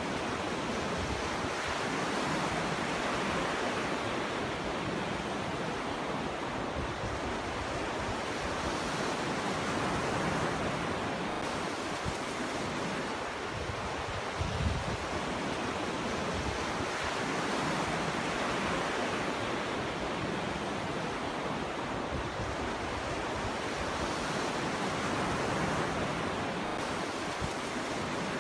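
Ocean surf breaking on a beach: a steady rushing wash that swells and eases slowly, with a low thump of a breaking wave about halfway through, and some wind on the microphone.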